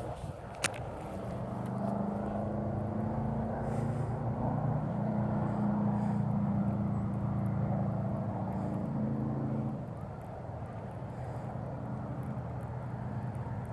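Steady drone of a distant engine that grows louder about two seconds in and fades away near ten seconds, like a vehicle or light aircraft passing by. A single sharp click comes just under a second in.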